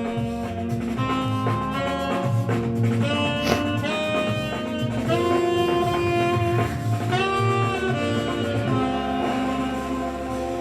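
Music playing through a Sonos Roam portable speaker: an instrumental tune with sustained melody notes over a steady bass line.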